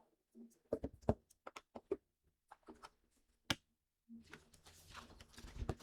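Colored pencil on a coloring book page: a run of light taps and clicks, one sharper click about three and a half seconds in, then the pencil scratching steadily across the paper.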